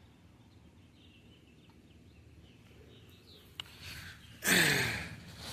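Faint bird chirps outdoors, then a short loud voice-like sound about four and a half seconds in that falls in pitch.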